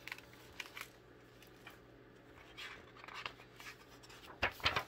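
A hardcover picture book being handled and its page turned: soft paper rustles and light clicks, with a louder rustle near the end.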